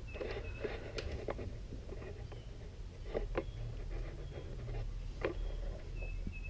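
Scattered light clicks and taps of hand tools and small metal parts being handled, as the clamp holding the throttle cable on a riding mower's Briggs & Stratton engine is undone.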